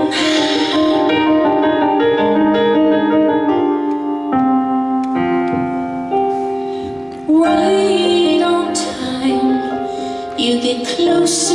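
A woman singing with piano accompaniment, holding several long notes in the middle of the phrase.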